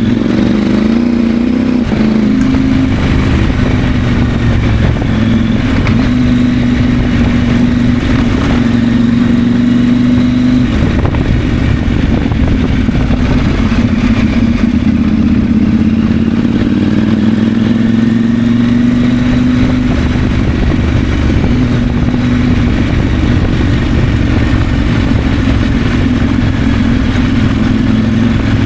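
KTM 890 Adventure's 889 cc parallel-twin engine running on the move, its note rising and falling slightly with the throttle.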